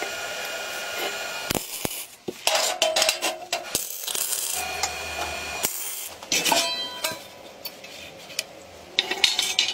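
Steel parts being handled on a metal workbench: short bouts of clinking, knocking and scraping of metal on metal, with sharp clicks between them.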